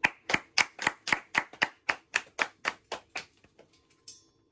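Hand clapping in a steady rhythm, about four claps a second, fading out after about three seconds. Near the end comes a single sharp click with a short, high metallic ring.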